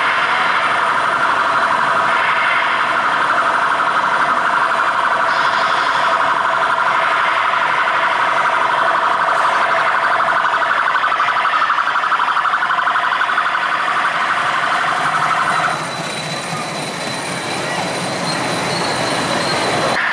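Kiddie rail ride of camouflage jeep cars running on its track, with a loud, steady buzzing drone from the ride that cuts off about sixteen seconds in.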